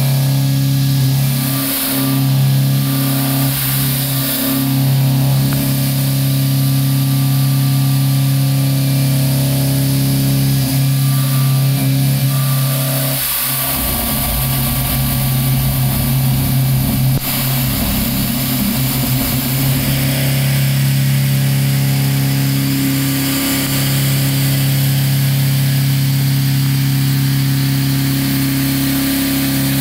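3/4-inch Kennametal HARVI I TE end mill in a CNC machining centre cutting 316 stainless steel on a dynamic toolpath: a steady, pitched machining hum. About 13 seconds in it turns rougher and noisier, then settles back into a steady tone around 20 seconds.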